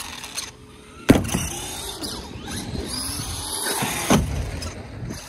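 Electric RC monster trucks driving on skate-park ramps: the motors whine, rising and falling in pitch as the throttle changes. There is a hard thump about a second in as the airborne truck lands, and a smaller knock near four seconds.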